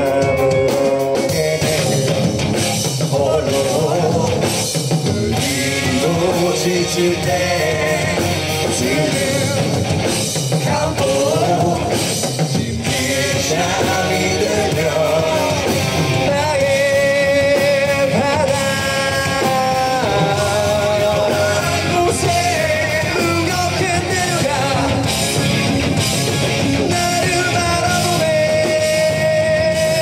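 Live rock band performing a song: a male lead vocal sung over electric bass, electric guitar and a Tama drum kit.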